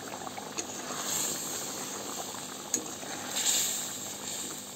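Thick fish curry bubbling and simmering in a karahi, with a metal spatula pushed through it, scraping twice, and a single sharp click of metal on the pan about halfway through.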